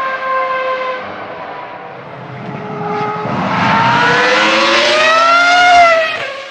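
Ferrari F2002 Formula 1 car's V10 engine at high revs. Its pitch falls and fades over the first couple of seconds, then climbs steadily as the car accelerates and grows louder. It peaks near the end and then quickly drops away as the car passes.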